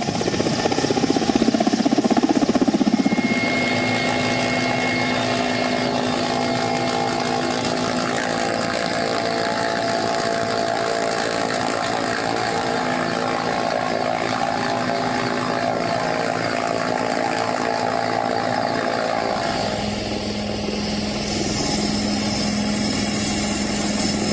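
Military helicopter's rotor and turbine running steadily and loudly, the tone of the noise shifting about three seconds in and again near the end.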